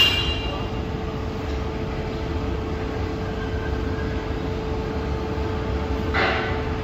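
PRINZ CUTSTAR 11 kW lumber-bundle cross-cutting station running: a steady machine hum over a low rumble, with a sharp metallic clank at the start and a brief metallic scrape about six seconds in.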